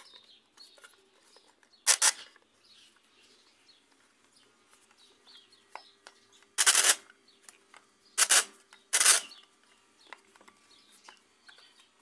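Sharp plastic clicks and clatter from a Maytag washer timer's plastic housing as it is handled and snapped shut: one about two seconds in, a longer rattle in the middle, then two more about a second apart. Faint bird chirps in the background.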